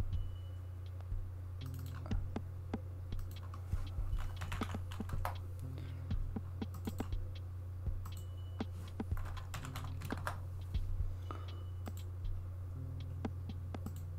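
Typing on a computer keyboard: irregular clusters of keystroke clicks over a steady low electrical hum.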